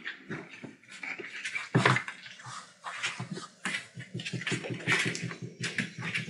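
Four-week-old collie puppies play-wrestling: small puppy growls and grumbles with scuffling paws and mouthing, in short irregular bursts.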